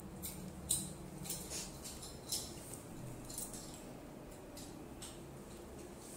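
Masala-coated sardines shallow-frying in hot oil in a pan: irregular crackling and popping of spattering oil, with a couple of sharper pops in the first few seconds.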